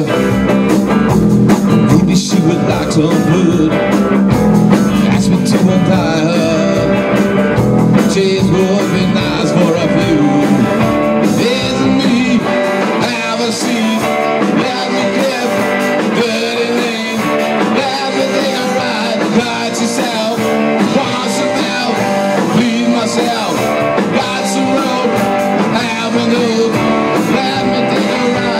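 Live rock band playing: two electric guitars, bass guitar and a drum kit.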